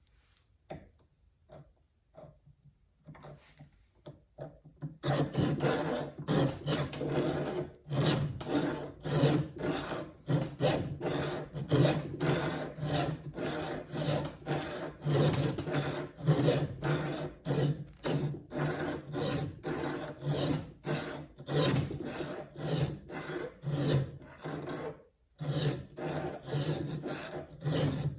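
A hand file rasping back and forth across a saw chain's steel cutter tooth in quick, even strokes, shaping the tooth by hand. The strokes start about five seconds in and stop briefly near the end.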